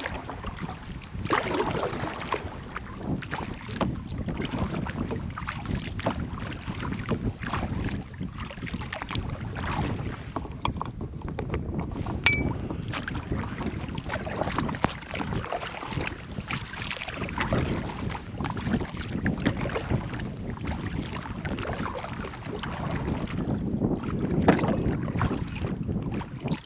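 Canoe paddle strokes in the water, a splash and drip with each stroke, repeating about every second or so, with wind buffeting the microphone.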